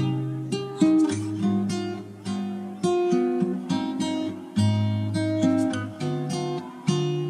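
Background music on acoustic guitar: plucked and strummed notes, each starting sharply and dying away.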